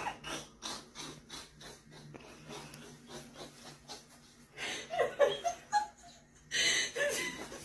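A person laughing quietly, first in soft breathy snickers several times a second, then a few voiced giggles about five seconds in and a louder breathy burst of laughter near the end.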